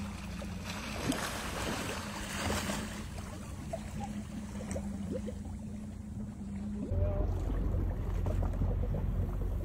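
A boat's motor idling with a steady low hum over the wash of water. About seven seconds in, the sound changes abruptly to a louder low rumble of boat and wind noise.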